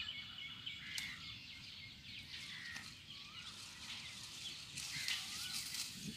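Faint outdoor background noise with scattered short bird chirps, a sharp click about a second in, and brief rustles of cassava leaves being picked and handled.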